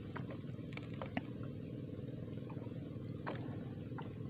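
A motor running steadily, a low even hum, with a few faint ticks over it.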